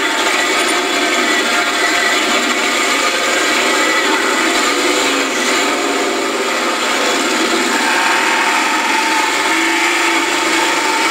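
A 4x4 mud race truck's engine running hard, heard from inside the cab: a loud, steady drone with no let-up.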